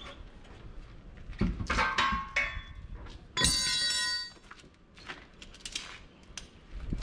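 Steel tire-changing tools knocking and clinking against metal, with a louder ringing clang about halfway through that lasts almost a second.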